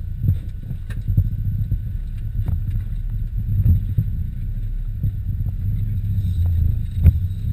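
Cab interior of a VW T3 Syncro van driving over a rough off-road track: a steady low engine and drivetrain rumble, with scattered knocks and rattles from the body over bumps, the sharpest about seven seconds in.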